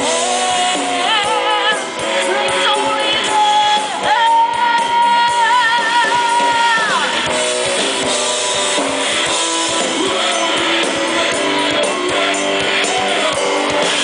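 Live rock band playing: a woman singing over electric guitars, bass guitar and drum kit. She holds one long note with vibrato from about four to seven seconds in.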